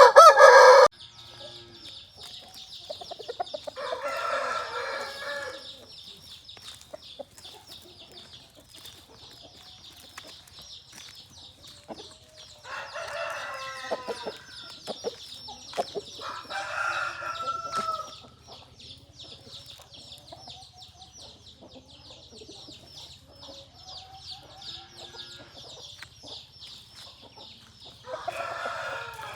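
Rooster crowing several times with chickens clucking, the loudest a short call right at the start. A steady high-pitched buzzing runs underneath.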